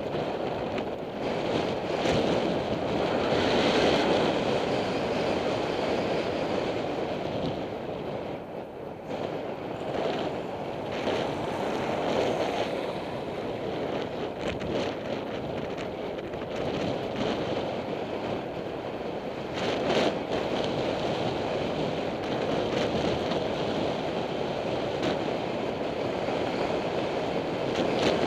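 Wind rushing over a bicycle helmet camera's microphone while riding, a steady buffeting that swells and eases.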